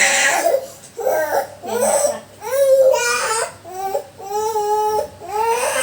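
Young child crying hard: a string of high wailing cries broken by quick breaths, with one longer held cry in the later part.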